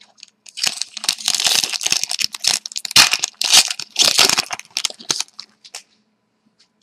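Foil wrapper of a hockey card pack crinkling as it is torn open and crumpled, a dense crackle lasting about five seconds.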